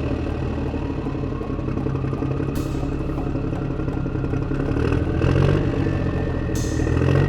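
Motor running steadily with a low hum and clatter, and a thin whine that rises slowly in pitch through the sound; it swells briefly about five seconds in.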